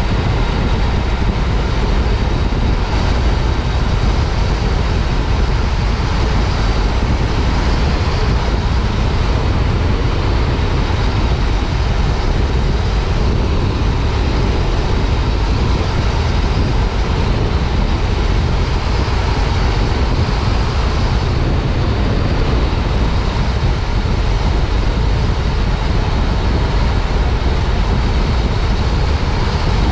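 Riding at a steady pace on a 2015 Yamaha FJ-09 Tracer: its 847 cc inline three-cylinder engine running under a heavy, even rush of wind and road noise, heard from a helmet chin mount.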